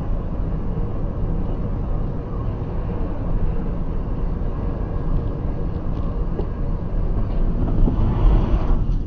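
A car's engine and tyre noise heard from inside the cabin while driving at highway speed: a steady low rumble. Near the end a louder rushing noise swells and then cuts off sharply.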